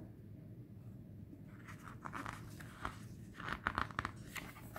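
Paper pages of a paperback guidebook being turned by hand: a run of soft rustles and a few crisp page flicks in the second half.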